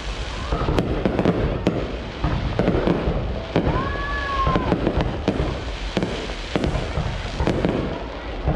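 Fireworks display going off: a rapid, irregular series of bangs and crackling bursts, with a brief whistling tone about four seconds in.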